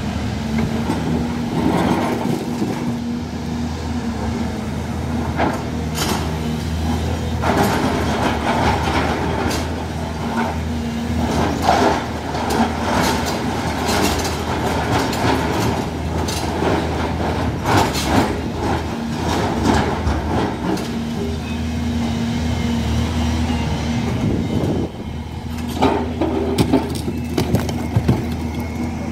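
CASE crawler excavator's diesel engine running steadily as its bucket digs and pries at broken rock, with repeated clanks and rock clatter, thickest through the middle stretch and again near the end.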